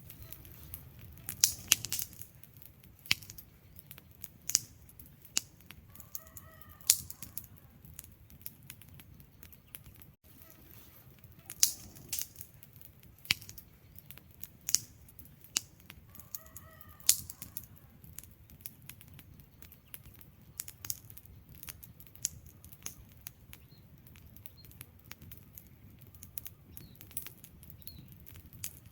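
Wood fire burning: logs crackling with sharp, irregular pops over the low, steady rush of the flames.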